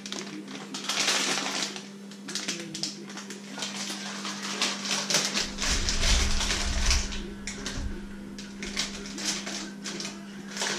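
Plastic potato bag crinkling and rustling with many sharp crackles as it is handled and opened on a wooden cutting board, with a deeper rumble of the bag shifting about halfway through. A steady low hum runs underneath.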